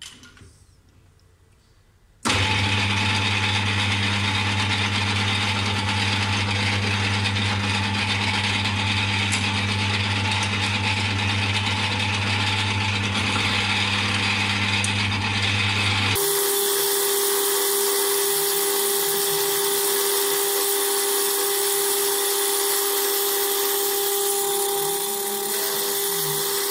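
Metal lathe starting up about two seconds in and running steadily while turning down an aluminium (Ergal) bar. About halfway through, its running sound changes suddenly from a low hum to a higher steady whine.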